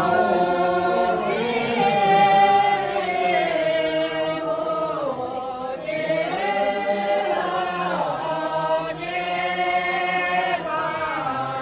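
A group of voices singing a slow, chant-like song in long held notes that slide up and down in pitch, phrase after phrase with short breaks between.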